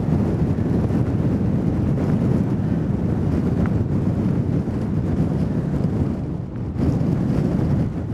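Hurricane wind buffeting the microphone in a steady, loud low rumble, with heavy storm surf underneath. The wind eases briefly a little over six seconds in.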